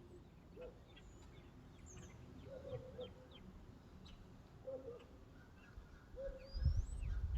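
Faint bird calls: short chirps every couple of seconds, with thinner high-pitched chirps among them. About six and a half seconds in, a low rumbling noise starts on the microphone.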